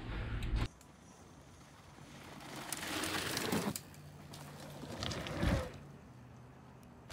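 A rush of noise that cuts off sharply under a second in, then mountain bike tyres rolling over dirt as a rider passes, swelling and fading about three seconds in and again about five seconds in.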